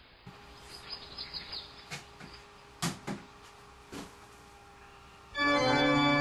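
Faint bird-like chirping with a few sharp clicks, then a loud sustained organ chord starts suddenly near the end.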